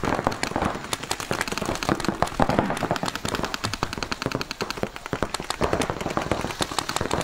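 Paintball markers firing rapid streams of shots, many shots a second from several markers overlapping into a continuous rattle of pops.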